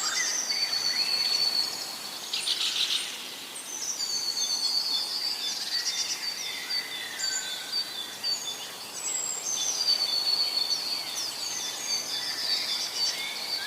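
Several birds chirping and singing at once, with overlapping high trills and short whistles.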